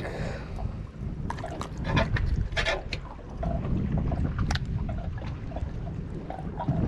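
Wind buffeting the microphone and water lapping and slapping against the boat's hull, with scattered small knocks and splashes.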